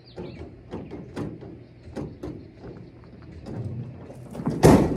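Tailgate of a Chevrolet square-body pickup being worked open: a string of knocks and rattles as its stubborn latch is tugged, then one loud bang about four and a half seconds in as the tailgate comes open.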